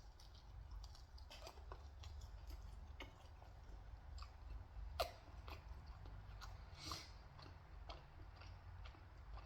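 A person chewing pizza close to the microphone: faint, irregular wet mouth clicks, with one sharper click about halfway through.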